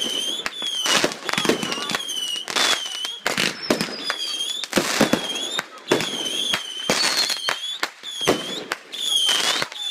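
Backyard consumer fireworks going off in rapid succession: many sharp bangs, with a wavering high whistle about once a second from whistling fireworks.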